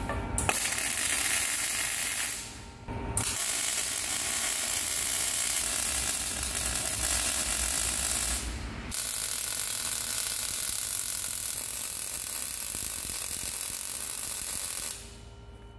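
MIG welding arc crackling steadily in three runs, with short pauses about two and a half and eight and a half seconds in, stopping near the end.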